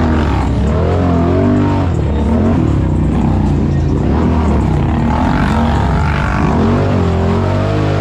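ATV engines running, their pitch rising and falling as the throttle is worked.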